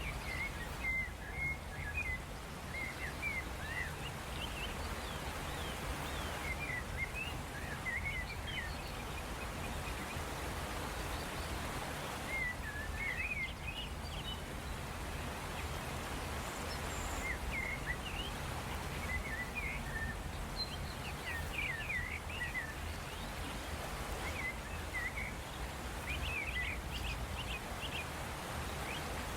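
Birds chirping again and again over a steady low background noise.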